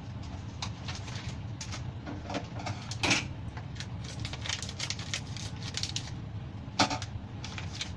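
Rice noodles being put into a pot of boiling water and handled in the kitchen: a run of small clicks and rustles with two sharper knocks, about three and seven seconds in, over a steady low hum.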